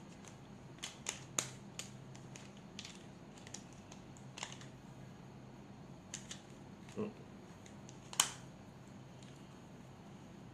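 Scattered light clicks and taps of hard plastic as a small battery-powered massager's red plastic head is handled and closed up over its batteries, about ten separate clicks, the sharpest about eight seconds in.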